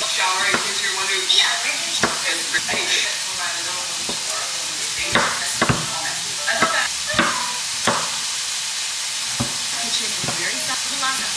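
Food sizzling in a frying pan, with a steady hiss and a series of sharp knocks and scrapes from a utensil against the pan.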